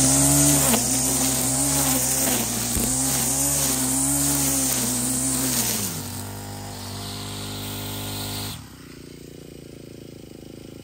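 String trimmer cutting long, overgrown grass, its motor speeding up and slowing repeatedly as the line bites into the thick growth. About six seconds in it runs steadier and quieter, then it cuts off abruptly a little over eight seconds in.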